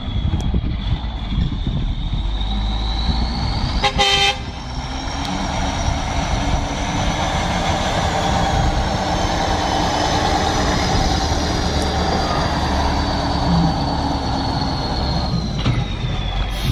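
KrAZ six-wheel-drive truck's V8 diesel engine running steadily as the truck crawls past, with a high whistle that rises and then slowly falls. A short horn toot sounds about four seconds in.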